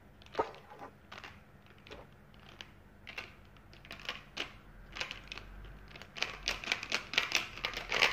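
Hard plastic toy figures clicking and clattering as they are handled and fitted onto a plastic stand: scattered taps at first, then quicker, denser clicks from about three seconds in.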